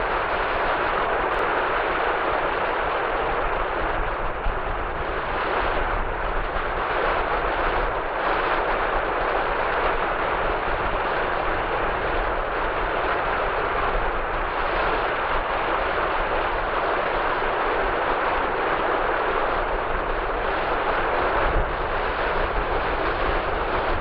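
Sea waves breaking on a sandy beach, a steady continuous wash of surf, with a low wind rumble on the microphone underneath.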